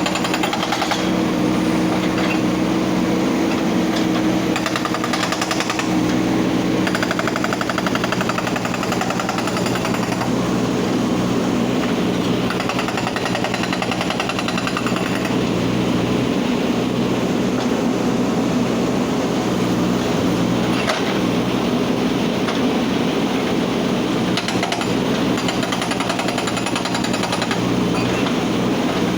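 Hydraulic breaker on a backhoe loader hammering rock in rapid, continuous blows, over the steady running of the machine's diesel engine.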